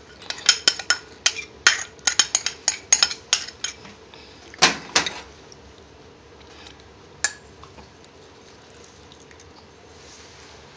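Quick clinks and taps against a stainless steel bowl as chopped garlic and green chillies are tipped in: a rapid run of light clicks over the first few seconds, two louder knocks about five seconds in, and a single tap near seven seconds.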